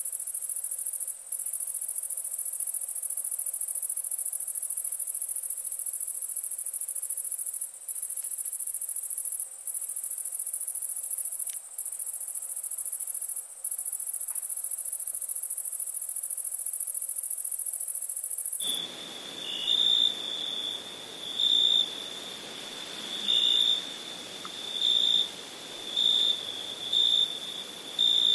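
Night insects trilling: a steady, very high-pitched buzz with a few brief breaks. About two-thirds of the way through it switches abruptly to a lower, steady shrill tone that swells louder every second or two.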